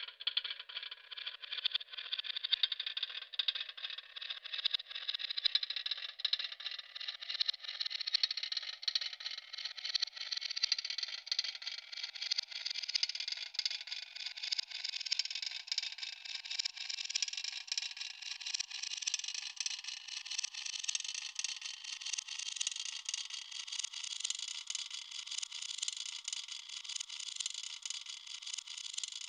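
Electronic music: a dense crackling, rattling noise texture whose band of pitch slowly rises, then holds steady near the end.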